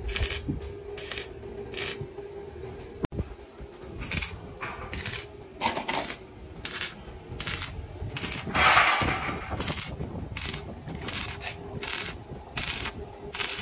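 Repeated short, scratchy scraping strokes of something hard worked against a hard surface, about two a second, with one louder, longer scrape about nine seconds in.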